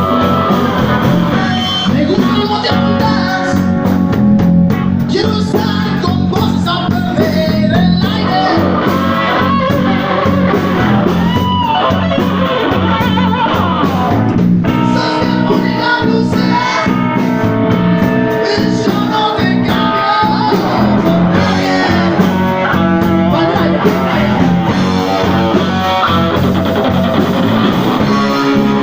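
Live blues-rock band playing, with electric guitar lines that bend in pitch over a steady bass and rhythm accompaniment.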